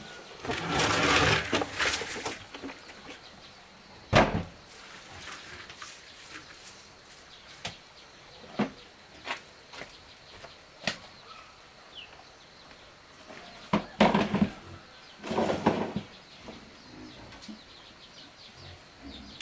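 Irregular knocks and clicks, the loudest a sharp knock about four seconds in, with a few short rustling or scraping bursts near the start and again around two-thirds of the way through.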